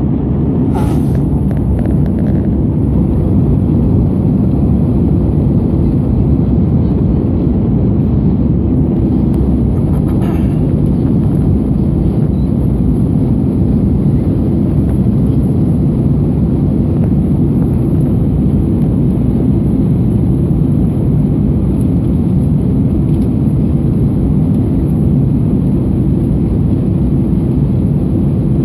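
Steady cabin noise inside an Airbus A319-112 on approach: a loud, even, low rumble of airflow and its CFM56 jet engines, heard from a window seat beside the wing.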